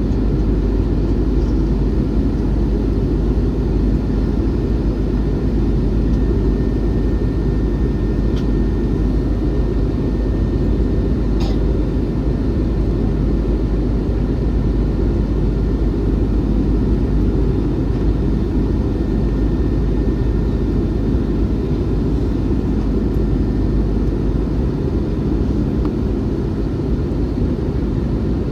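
Steady cabin noise inside an Airbus A321-211 in flight: a constant low rumble of its CFM56 turbofan engines and airflow over the fuselage, with a couple of faint clicks partway through.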